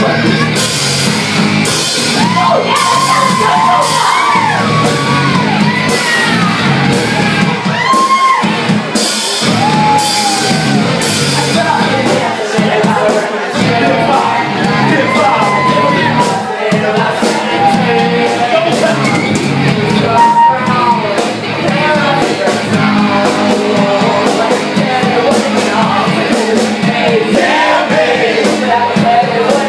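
A live rock band plays loudly in a club: a drum kit with frequent cymbal hits, thickest in the first dozen seconds, bass guitar and a lead singer, with shouts and whoops over the music.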